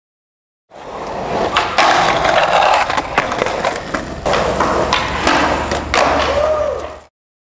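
Skateboard wheels rolling on concrete, with several sharp clacks of the board popping, landing and its trucks hitting a curb ledge. It starts after a short silence and cuts off abruptly just before the end.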